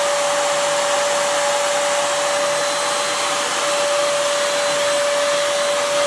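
Sinbo SVC-3472 corded stick vacuum cleaner's 1000 W motor running steadily: an even rush of air with one constant whining tone.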